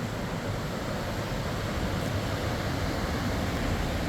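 Steady wind noise on the microphone mixed with the wash of ocean surf, an even rushing sound heaviest in the low end.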